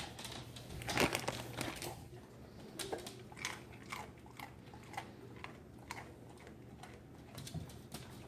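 Dog crunching and chewing a treat it has just caught: a string of short, irregular crunches, the loudest about a second in.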